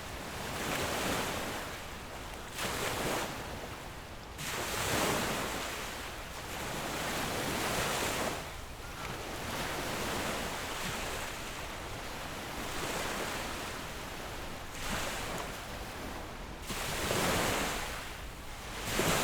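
Ocean waves breaking on a beach, the surf swelling and falling back every few seconds, with some wind rumble on the microphone.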